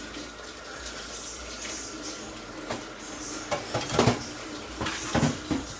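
Kitchen clatter: several knocks and clinks of pots, lids and utensils, loudest about four seconds in, over a steady hiss from pans cooking on the hob.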